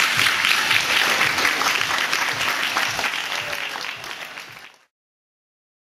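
Audience applauding, a dense patter of many hands clapping that fades away and stops about five seconds in.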